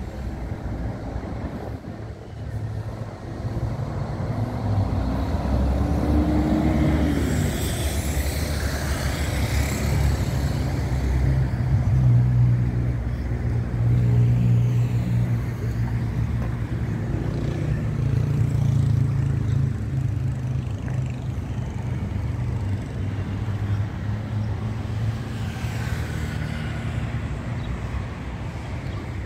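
Coach bus's diesel engine running close by, a low steady drone that builds about four seconds in, is loudest around the middle and eases off near the end.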